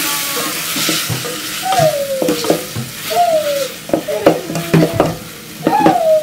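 Wooden spoon stirring and scraping chopped tomatoes frying in an aluminium pot, with sizzling and repeated knocks of the spoon against the pot. Three short falling cries sound over it.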